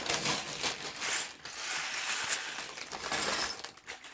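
Many loose plastic Lego pieces clattering and rattling together as they are scooped and poured into a bag, dying away near the end.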